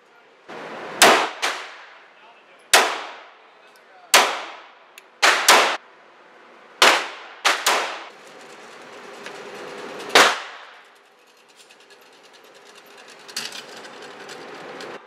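About ten gunshots fired at irregular intervals, some in quick pairs, each ringing with the echo of an indoor shooting range.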